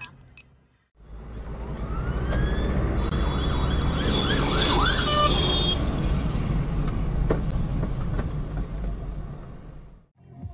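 Ambulance siren sounding in rising and falling sweeps, heard from inside a moving car over a steady road rumble; it rises from about two seconds in and fades after about six. A single sharp knock comes a little past the middle.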